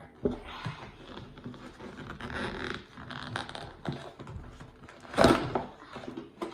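Rustling and scraping as a Jack in the Box toy and its packaging are handled, with scattered light knocks and a louder, brief rustle about five seconds in.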